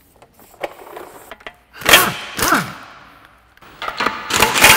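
Impact wrench run in two short bursts about two seconds in, each winding down in pitch, then a longer run near the end on the car's wheel bolts as they are undone for wheel removal.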